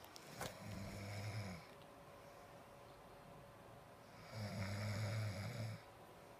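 A sleeping person snoring: two snores about three and a half seconds apart, the second one longer.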